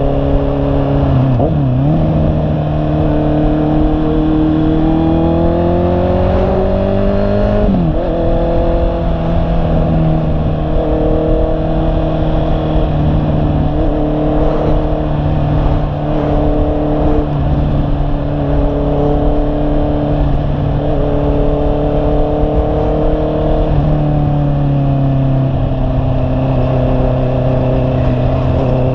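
Honda CB650R's inline-four engine under way, revving up through the gears with a sharp drop in pitch at each upshift, about a second and a half in and again about eight seconds in. It then holds a steady cruise, easing off a little near the end, with wind rushing on the microphone underneath.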